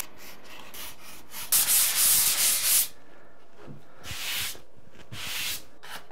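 Dried drywall joint compound being sanded by hand, abrasive rubbing against the wall in strokes. A few short strokes come first, then a steady run of about a second and a half, then quieter, shorter strokes.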